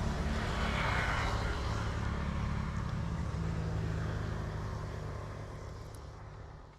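A small engine running steadily with a low, even hum, gradually fading toward the end.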